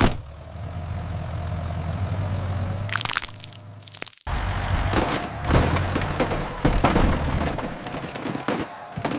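Tractor engine sound effect running with a low steady drone. It cuts out briefly about four seconds in, then returns mixed with a string of sharp cracking and crunching impacts.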